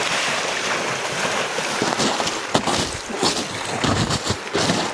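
Legs in chest waders splashing through shallow river water. A dense, continuous splashing rush for about the first two seconds gives way to separate sloshing surges, one per wading stride.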